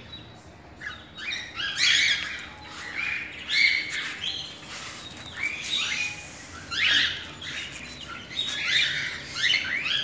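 Several cockatiels chirping, short up-and-down calls overlapping one another, a few every second.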